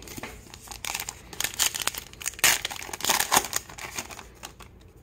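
Foil trading-card pack wrapper crinkling and tearing as it is ripped open: a dense run of sharp crackles that dies away near the end.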